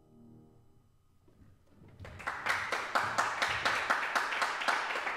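The last held note of the viola with piano fades away, and about two seconds in, applause breaks out and carries on.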